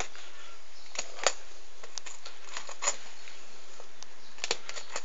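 Filleting knife cutting along a red snapper's rib cage bones, giving a scatter of small sharp clicks and ticks over a steady low hiss.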